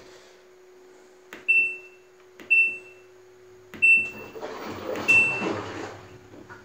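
LG Direct Drive front-load washer's control panel beeping four times as its button is pressed about once a second to step through test mode, each press a click followed by a short high beep. A steady hum runs underneath.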